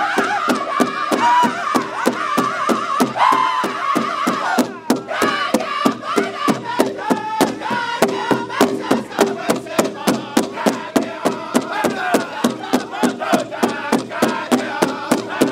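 Powwow drum group singing in high-pitched unison around a big drum, the drumsticks striking the shared drum together in a steady beat of about three beats a second.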